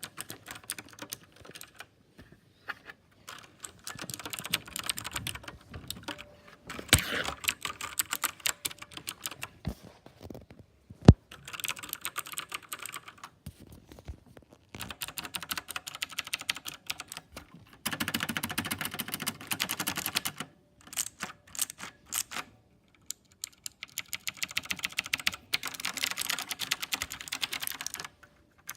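KLIM Domination mechanical keyboard with clicky blue switches being typed on in quick runs of keystrokes, with short pauses between runs. One single loud keystroke stands out about eleven seconds in.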